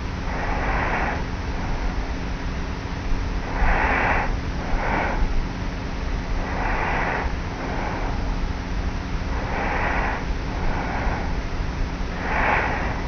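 Light, regular snoring breaths of a young woman sleeping on her back, picked up by a tape recorder lying on her pillow: a soft breath about every three seconds, some of them double, over a steady hiss and a faint hum.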